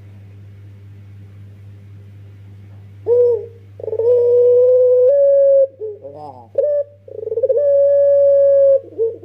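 Young Barbary (ringneck) dove of the long-cooing 'puter pelung' type, cooing. A short coo comes about three seconds in, then long drawn-out coos each held at one pitch for over a second, with a quick run of falling notes between them.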